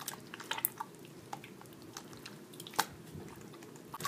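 Clear glue-and-borax slime squelching and popping as it is kneaded by hand: scattered small wet clicks, with one louder pop about three seconds in.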